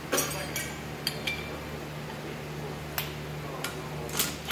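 Rusty steel tractor hitch parts and hand tools clinking and knocking on a concrete floor while being handled, one clink ringing briefly about a second in, with a few louder knocks near the end, over a steady low hum.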